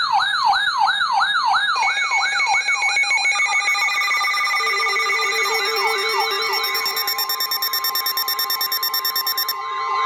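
Electronic sirens: a fast siren sweep repeating about three times a second. Within a few seconds it is joined by several more steady and rapidly warbling siren tones layered on top of one another.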